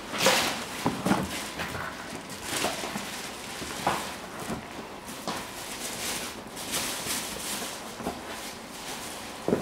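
Nike Air Foamposite One sneakers stepping and turning on carpet: irregular soft footfalls and shoe scuffs, a few every couple of seconds.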